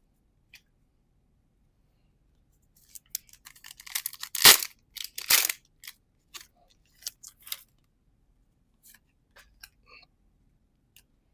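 Foil trading-card booster pack wrapper crinkling and tearing open, with the two loudest crackles close together in the middle, followed by a few light clicks of the cards being handled.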